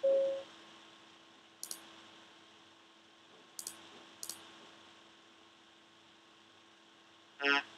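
Sonic Pi synth notes triggered by OSC messages from Blender: a short pure electronic beep at the start, then a brief buzzy, overtone-rich synth blip near the end, with a few faint high clicks in between. The notes come out sparse and stuttering, which the user puts down to the computer being too slow to keep up.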